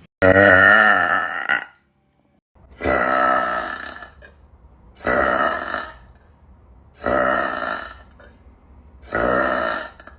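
A woman burping loudly five times, about two seconds apart. The first burp is the longest and loudest, with a wavering pitch; the others are shorter and evenly spaced.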